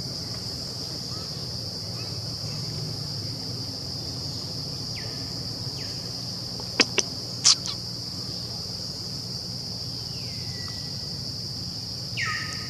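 Steady high-pitched insect drone, with a few short downward-sliding bird calls and three sharp clicks about seven seconds in.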